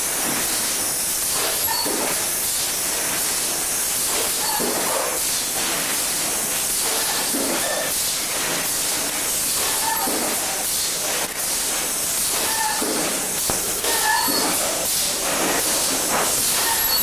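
Thermoforming machine running with a steady hiss.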